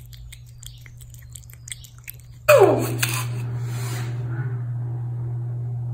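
A cat eating soft wet pâté from a plastic plate: a quick run of small wet chewing and lapping clicks. About two and a half seconds in, the sound changes suddenly to a louder room with a steady low hum, opening with a brief falling vocal sound.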